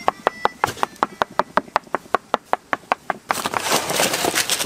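Rapid, even chopping knocks on a wooden board, about five or six a second, giving way about three seconds in to a steady hiss.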